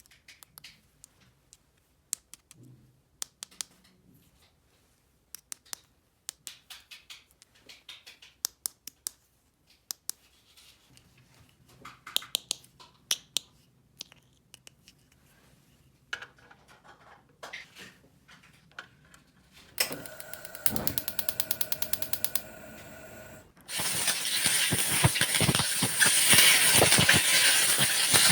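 Small hard plastic toy pieces clicking and tapping as they are handled, scattered and irregular, then a fast even ticking about 20 seconds in, and a loud steady hiss-like noise near the end.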